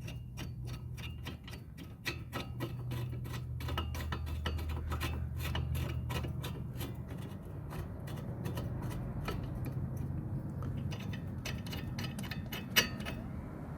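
Ratchet wrench clicking rapidly and steadily as it runs down the front brake caliper bracket bolts. A steady low hum sits underneath, and there is one sharper click near the end.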